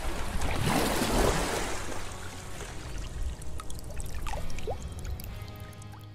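Rushing, trickling water that fades away over the first few seconds, with a few short rising bubbling blips in the middle, under faint background music.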